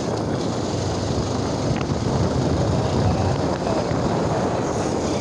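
Motorcycle riding along a road: its engine runs steadily while wind rushes over the microphone.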